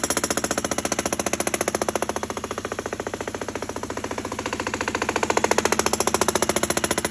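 Pneumatic jackhammer breaking up a concrete driveway slab: a rapid, even hammering that runs without a break.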